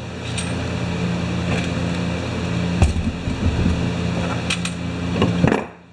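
A steady machine hum that cuts off suddenly near the end, with a few light metal clinks as chainsaw engine parts are handled.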